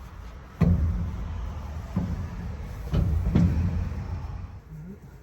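Heavy clunks from the combine's corn head being lowered and set down, over the low steady rumble of an engine. There are four knocks, the first about half a second in and the last two close together a little past three seconds.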